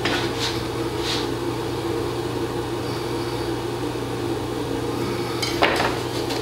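Steady mechanical hum, with a couple of soft scraping strokes on the gesso-coated panel in the first second and a sharp click about five and a half seconds in.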